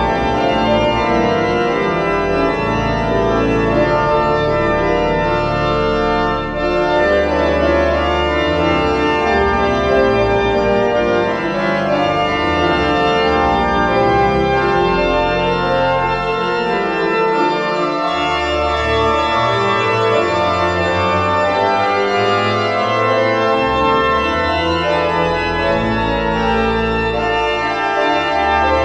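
Pipe organ music: held chords that change every few seconds over sustained, shifting bass notes.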